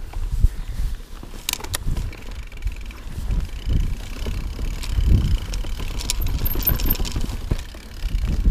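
Mountain bike riding down a rocky trail: low tyre rumble over stones, with the bike's chain and parts rattling and clicking at irregular moments.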